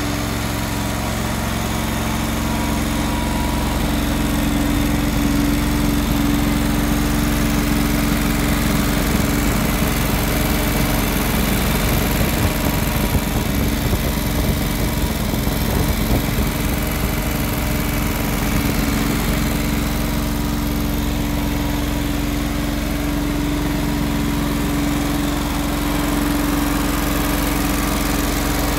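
John Deere 425 lawn tractor's 20 hp liquid-cooled overhead-valve V-twin engine running steadily at a constant speed.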